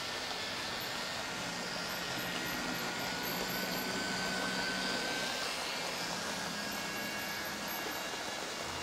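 Two OO gauge model Class 47 diesel locomotives, from Lima and Bachmann, running with coaches: a steady whir of small electric motors and wheels on the rails, with a faint whine that rises slightly over the first half.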